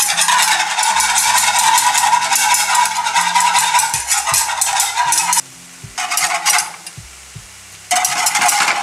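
A metal whisk beating butter sauce in a small saucepan: rapid scraping strokes against the pan's sides. The strokes stop about five and a half seconds in, come back briefly, then resume near the end.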